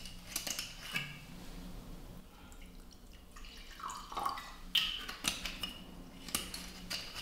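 Liquid poured from a bottle into a glass tumbler, with a gurgling glug about four seconds in, followed by a few short clicks.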